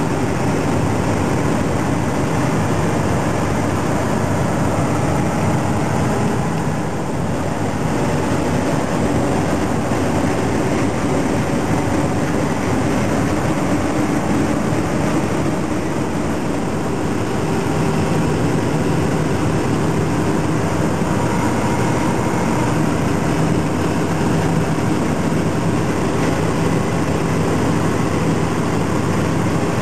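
Semi truck driving at a steady highway speed: a continuous low engine drone mixed with road and wind noise.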